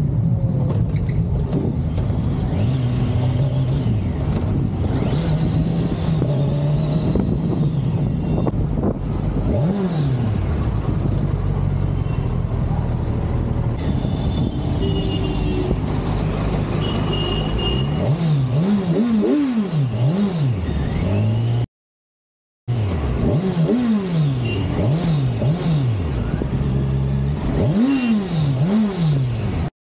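Kawasaki Ninja 1000's inline-four engine running on the move, its pitch steady at first, then a run of quick revs rising and falling in turn from about eighteen seconds in. The sound cuts out briefly once near the end.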